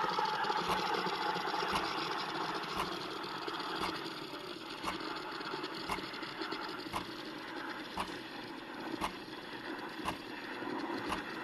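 Espresso capsule machine's pump running steadily as it brews, with a sharp click about once a second. The sound eases a little about four seconds in.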